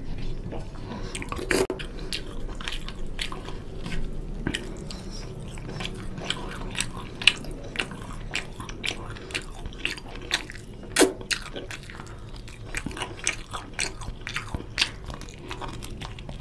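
Close-up sounds of eating mutton curry and rice by hand: chewing and wet mouth clicks, with fingers working through the gravy on the plate. The clicks come thick and fast, with two sharper, louder ones about seven and eleven seconds in.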